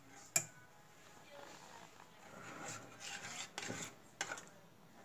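Metal spoon scraping and clinking against a stainless steel pot of thick tomato pasta sauce as it is stirred and the pot handled. A sharp clink about half a second in, then faint scraping and a few short knocks in the second half.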